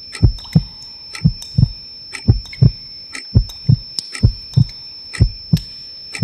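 Heartbeat sound effect: a low double thump, lub-dub, about once a second, six beats in all, over a steady high thin ringing tone.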